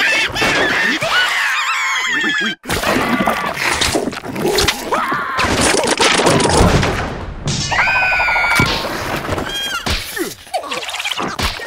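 Cartoon soundtrack: the larva characters screeching and gibbering in high, wavering voices over comic whack and crash effects, with a brief sudden drop-out about two and a half seconds in.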